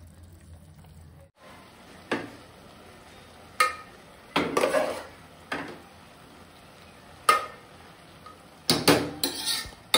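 A metal ladle clinking and scraping against metal cooking pots as par-cooked basmati rice is scooped up and dropped onto chicken for a dum biryani: a few sharp clinks spaced a second or more apart, with a quick run of them near the end.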